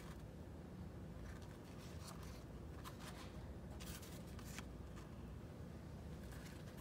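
Soft rustles and light taps as pieces of flatbread are handled and laid on serving plates, several short ones spread through, over a low steady hum.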